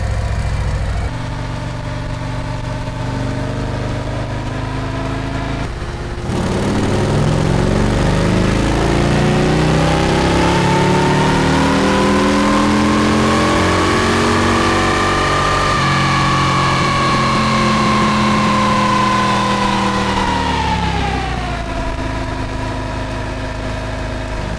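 Stock 2024 Harley-Davidson Milwaukee-Eight 117 V-twin running on a chassis dynamometer for a baseline power run. It runs steadily at first. About six seconds in it makes one long pull, rising in pitch for about nine seconds, then falls back as the throttle closes and the engine winds down.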